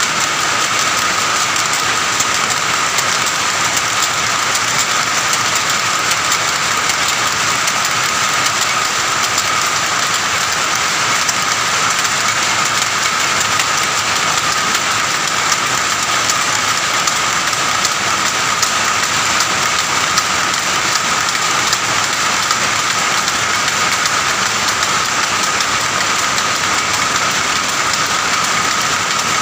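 Several power looms running together, a loud, dense, steady mechanical clatter of rapid even beats with a steady high hum running through it.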